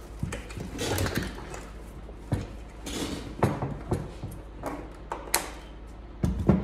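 Handling noises: cut plastic zip ties being slid out from under a wooden block, and a scooter wheel with a honeycomb tire being lifted and set back on the block, giving scattered light clicks and knocks with soft rustling between them.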